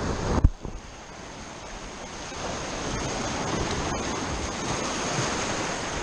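Small waves washing and breaking over reef rocks, with wind buffeting the microphone. A single sharp knock about half a second in.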